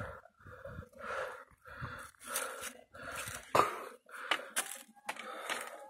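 A person's heavy breathing, quick repeated breaths, from the effort of climbing a steep rocky hill. A sharp knock stands out about three and a half seconds in.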